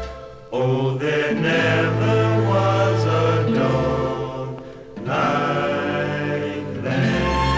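Sad oldies ballad: sung vocal phrases over instrumental backing, with two short breaks between phrases.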